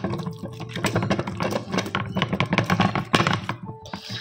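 Metal potato masher mashing boiled potatoes and cauliflower in a pressure cooker pot: quick, irregular taps and knocks of the masher against the pot, with soft squelching of the mash.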